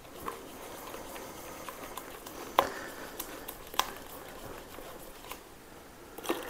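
Egg yolks being stirred with a silicone spatula in a stainless steel mixing bowl as hot milk is poured in slowly to temper them: a soft liquid swishing, broken by a few sharp clinks against the bowl, the loudest two about a second apart in the middle.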